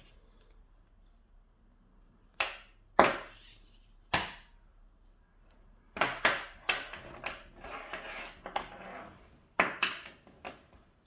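Braided magnetic USB charging cables being handled: a few sharp clicks spaced about a second apart, then a busier run of clicks and rustling, and two more clicks near the end.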